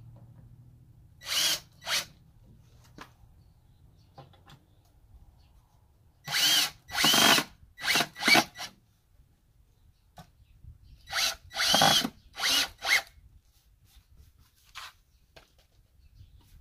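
Cordless drill driving screws into a wooden frame of two-by-fours, run in short bursts that each spin up in pitch. The bursts come in three groups: two about a second in, four around the middle, and four more a few seconds later.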